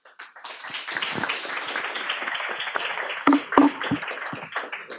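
Audience applauding: a few seconds of many hands clapping that thins out near the end, with a couple of louder knocks about three and a half seconds in.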